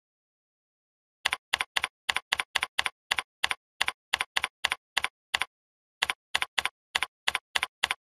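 Computer keyboard keystrokes, single sharp clicks about three a second that start a little over a second in, with a short pause about halfway, as terminal commands are typed. There is dead silence between the clicks.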